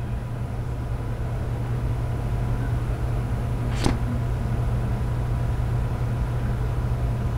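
Steady low hum, with one light click about four seconds in as the lid of a cardboard phone box is slowly lifted off.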